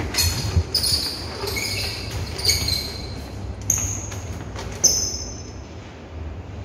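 Footsteps and handling noises in a tiled lobby, with a sharp knock just under five seconds in.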